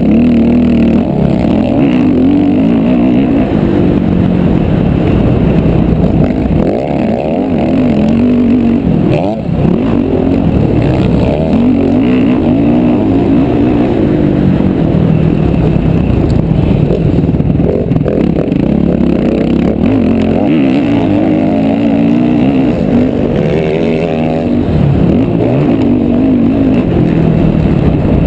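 Motocross bike engine recorded on board at the rider's helmet, revving hard and falling back over and over as it accelerates, shifts and slows around a dirt track.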